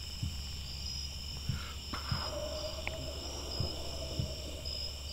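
A night insect chorus chirping steadily in a high pulsing drone, with soft low thumps every second or so.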